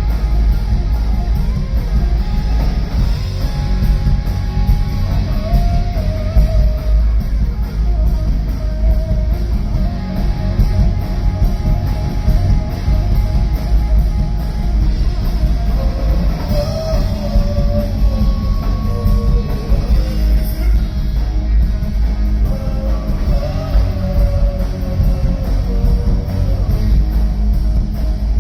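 Live rock band playing loudly: electric guitar and bass over a drum kit, with a wavering melodic line above them.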